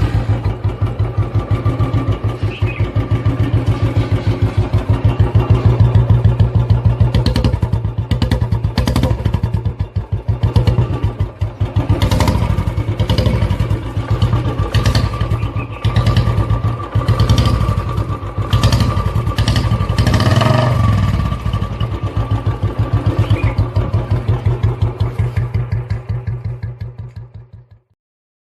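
Royal Enfield Bullet's single-cylinder engine running with a steady beat of separate exhaust pulses, revved up several times, then fading out near the end.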